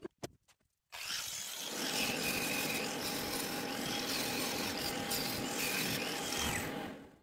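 Angle grinder running against a steel frame's corner weld, grinding off the welding slag. It starts about a second in and runs steadily until just before the end.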